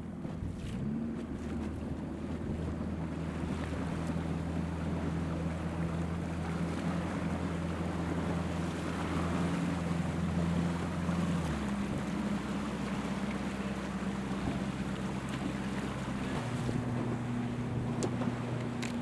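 Boat engine humming steadily, its pitch stepping to a new level a few times, over wind noise on the microphone and splashing water.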